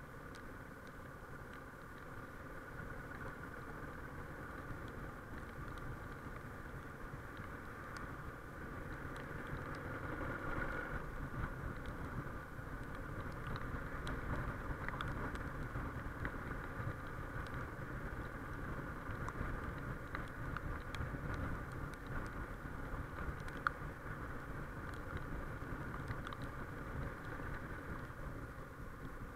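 Suzuki XF650 Freewind's single-cylinder four-stroke engine running under way, with wind rush on the chest-mounted camera's built-in microphone. The sound grows louder over the first ten seconds or so as the bike speeds up, then holds steady.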